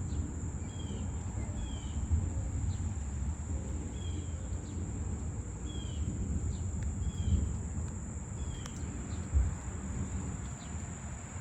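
Insects keep up a steady high-pitched drone while a bird repeats short falling chirps every second or two, over a low rumble of wind and a few light taps.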